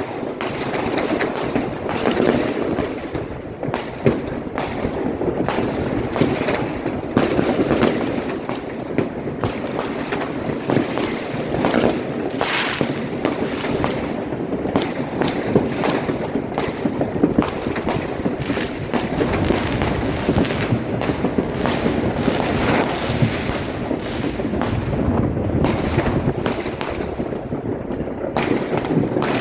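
Dense, continuous crackling of many fireworks and firecrackers going off at once, sharp bangs overlapping with no pause.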